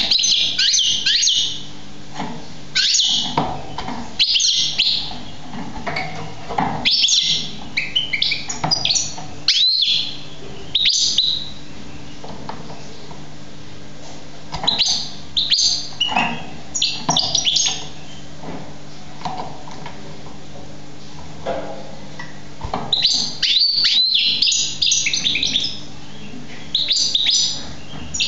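Young Algerian goldfinch singing: bursts of rapid, high twittering phrases a second or a few seconds long, with short pauses between them.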